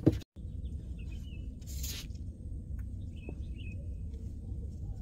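Wind buffeting the microphone as a steady low rumble over open water, with faint bird chirps a little after a second in and again past three seconds, and a short hiss near two seconds.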